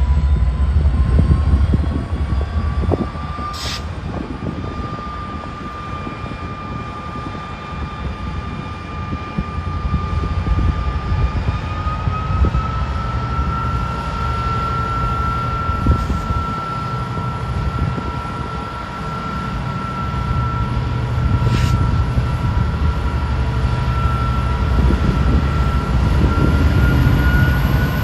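EMD GP60 diesel-electric locomotive's turbocharged V16 two-stroke engine throttling up from a stop: a heavy low rumble with a whine above it that climbs in steps, the engine growing louder near the end.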